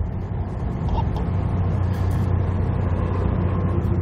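Steady low hum of an engine running, growing a little louder over the first second or two.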